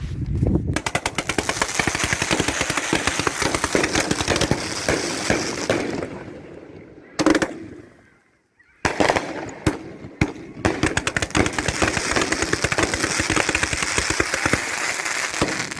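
Fireworks going off in long runs of rapid crackling reports, like a string of firecrackers. A lone loud bang comes about halfway through, then a brief lull, then the rapid crackling starts up again.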